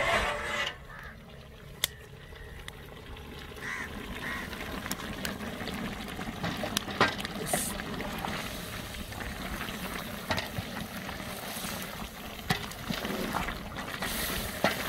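Goat meat and tomatoes cooking in a large aluminium pot over a wood fire: a steady sizzle and bubble as a long wooden spoon stirs and scrapes through it to keep the meat from sticking to the bottom, with a few sharp knocks of the spoon against the pot. The lid is lifted off at the start.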